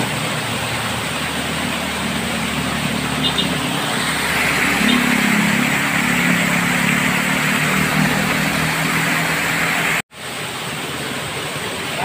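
Steady rush of water pouring over a concrete weir into a shallow pool. It cuts out for a moment near the end, then the rush of a small waterfall over rock goes on.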